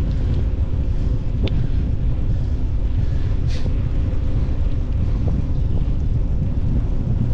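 Wind buffeting the microphone of a camera moving along a road: a steady low rumble, with a couple of faint ticks.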